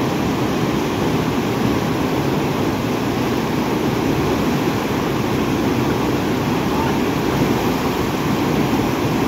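Whitewater rapids of a rocky mountain river rushing steadily and loudly.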